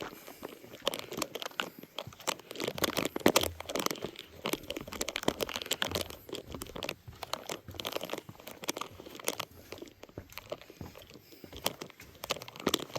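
Irregular crunching and crackling of dry leaves and twigs underfoot on the forest floor, with many small cracks in a row.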